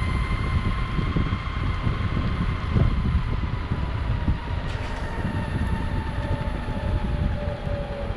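Metroboard electric mountainboard riding on asphalt: its motor drive gives a high whine that falls slowly in pitch as the board eases off, over a steady low rumble of the pneumatic wheels rolling on the pavement.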